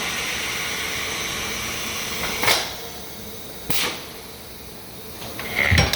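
Tyre-changer machine at work on a low-profile tyre: a steady compressed-air hiss for about the first two seconds, then two sharp knocks and a louder, deeper thump near the end.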